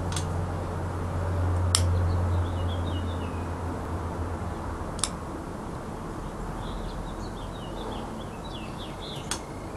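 Small birds chirping in short twittering phrases, twice, over a steady low hum that fades away after the first few seconds, with a few sharp clicks.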